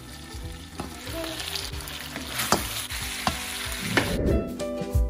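Sliced roast beef sizzling and frying in a stainless steel pan, steaming with a little vinegar added, with a few sharp metal clinks. About four seconds in, the sizzle cuts off and background music takes over.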